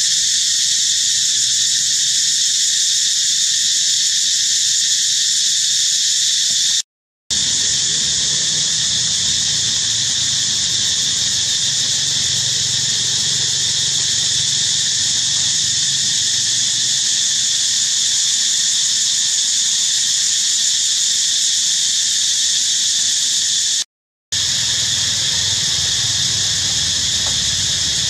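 Steady, loud, high-pitched chorus of insects, cutting out completely twice for a moment.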